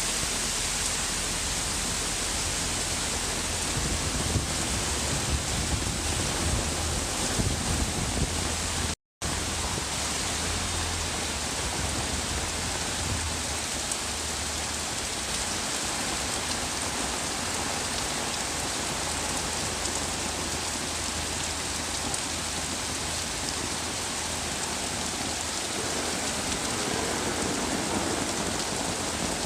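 Heavy rain falling steadily, a dense even hiss with a low rumble underneath in the first half. The sound cuts out completely for a split second about nine seconds in.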